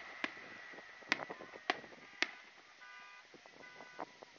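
Scattered sharp cracks of fireworks, about five spread across a few seconds, over a faint steady high tone. A brief pitched, horn-like tone sounds near the end.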